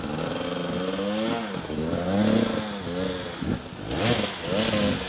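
Enduro dirt bike engine revving, the throttle blipped up and down several times so the pitch rises and falls again and again.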